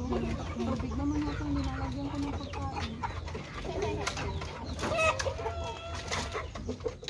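Domestic chickens clucking inside a wooden coop, with a few louder, clearer calls about five seconds in.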